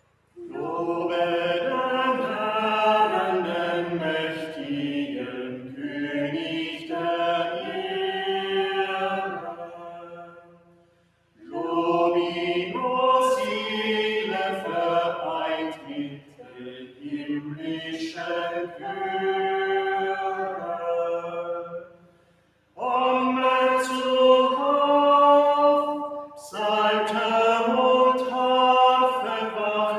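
A small group of singers singing a church hymn together, in long sung phrases with two short pauses between them.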